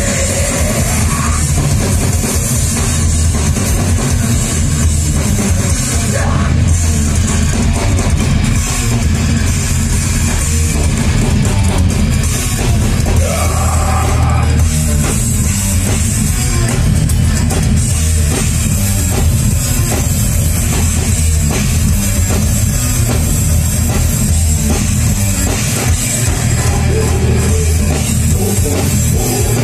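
Heavy metal band playing live and loud: electric guitars through Marshall amps over a drum kit, in one dense, unbroken stretch of music.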